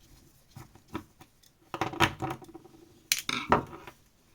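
Small plastic and metal parts of a Canon PIXMA printhead clicking and clattering as it is taken apart by hand. Scattered light clicks are followed by two louder bursts of scraping and clatter, about two and three seconds in.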